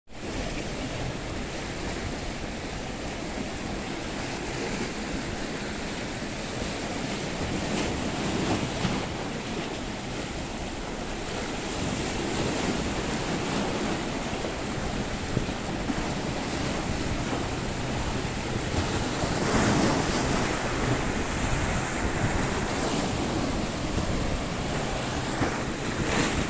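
Wind buffeting the microphone over choppy open sea, with waves splashing and sloshing close by; a steady rush of noise that swells a little now and then.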